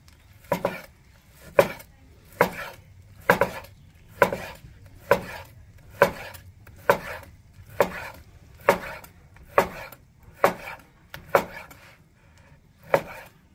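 A long chef's knife slicing through grilled flank steak and knocking on a wooden cutting board at the end of each cut, about one cut a second, with a short pause near the end.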